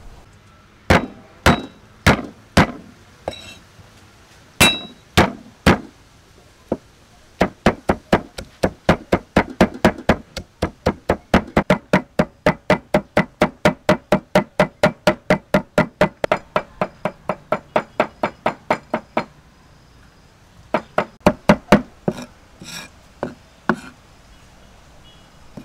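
Cleaver chopping red onion on a wooden chopping board: a few slow single chops, then a long run of quick, even chops at about four a second, a short pause, and a last quick burst of chops near the end.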